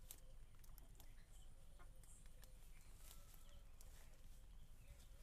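Near silence: faint outdoor ambience, a low steady rumble with scattered faint ticks and a few faint chirps.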